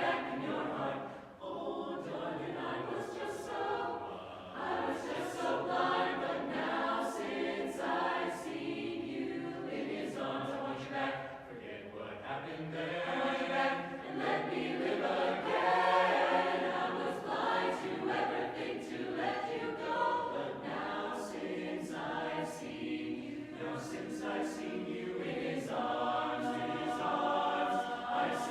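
Youth mixed barbershop chorus singing a cappella in close harmony, many voices together with crisp, sharp consonants.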